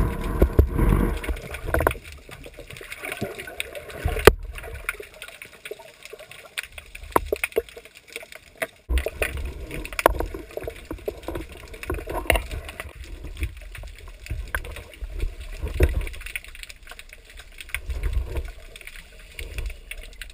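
Water sloshing and gurgling, heard muffled through a GoPro's waterproof housing held just under the sea surface, with irregular clicks and knocks against the housing as the speargun it is mounted on is handled.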